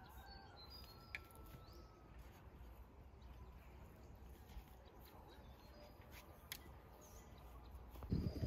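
Faint countryside ambience with scattered bird chirps and a few light clicks. Near the end, a louder, low rustling noise starts up.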